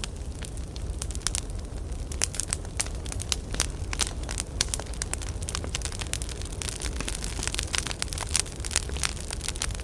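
Burning firewood crackling and popping in irregular sharp snaps, more thickly in the second half, over a steady low rumble of the fire.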